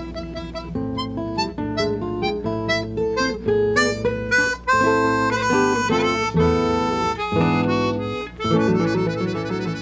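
Harmonica and acoustic guitar duet: the harmonica plays a quick melody over fingerpicked guitar, in the closing bars of the piece.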